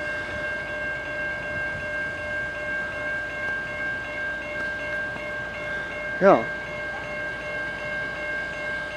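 Railroad grade-crossing warning bell ringing steadily, its strokes blending into a constant ring while the crossing gates are down for a train.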